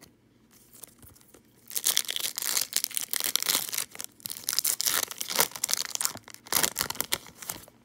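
A baseball card pack wrapper being torn open at its crimped seal and crinkled in the hands, with a dense run of crackling and tearing starting about two seconds in.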